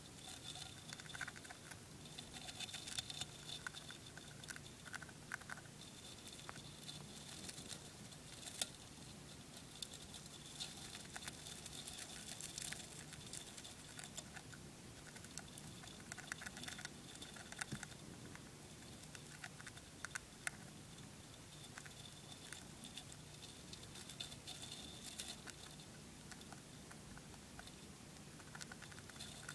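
Winter white dwarf hamster nibbling spray millet: a run of tiny, faint crunching clicks that come in clusters as it gnaws at the seeds.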